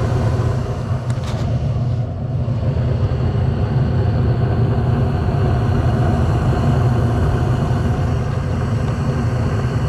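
Gas furnace running just after a successful hot-surface ignition: the lit burners and the draft inducer fan make a steady low rumble. A faint click sounds about a second in.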